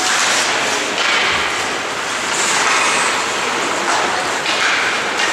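Ice hockey being played in an indoor rink: skate blades scraping and carving the ice in a steady hiss, with a few sharp knocks of sticks and puck.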